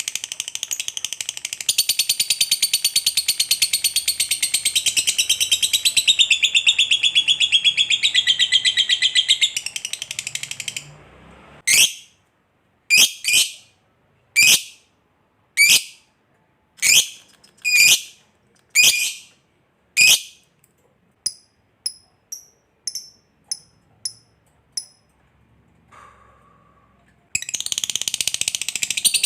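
Lovebird ngekek panjang, a long unbroken, rapid, high chattering trill. About 11 seconds in it breaks off into a series of single sharp calls, each falling in pitch, roughly one a second. Faint short chirps follow, and the long chatter starts again near the end.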